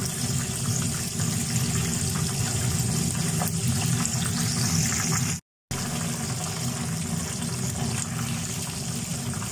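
Hot oil sizzling and bubbling steadily around breaded chicken pieces deep-frying in a pan on low-medium heat, broken by a brief silent gap a little past halfway.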